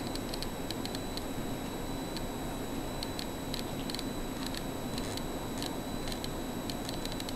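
Mini quadcopter's small brushed motor spinning with a steady high whine and irregular clicking. The owner puts the clicking down to a brush damaged inside the back-left motor, dragging with excess friction.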